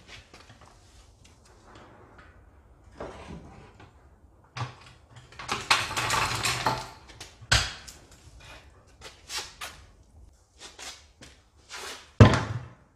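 Rusty rear suspension assembly (trailing arm, brake drum and coil-spring strut) being lowered off a trolley jack and handled on a concrete floor: scattered metal knocks and scrapes, a sharp clank about seven and a half seconds in and a heavier thunk near the end.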